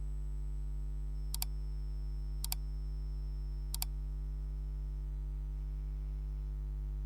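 A steady low electrical hum, with three sharp double clicks about a second apart in the first half.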